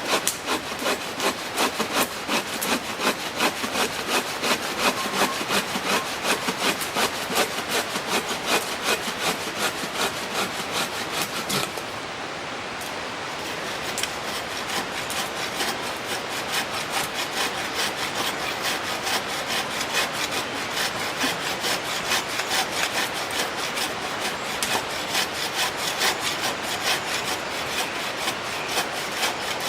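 Hand saw cutting through a log in quick, even back-and-forth strokes, about three a second, with a short, softer pause about twelve seconds in before it carries on.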